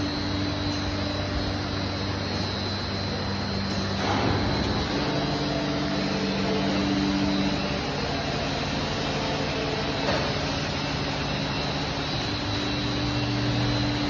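Hydraulic vertical plastic injection moulding machine running, a steady mechanical hum whose pitch shifts as its load changes, about four to five seconds in and again near the end.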